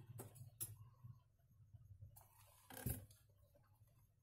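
Near silence with quiet handling of a sheet of non-woven interfacing on a cutting mat: a few faint rustles and clicks, and one brief louder rustle about three seconds in, over a low steady hum.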